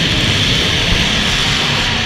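Demolition derby cars' engines running hard at high revs in the arena, with music playing underneath.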